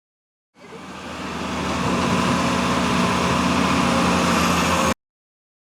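Excavator's diesel engine running steadily. It fades in about half a second in and cuts off abruptly near the end.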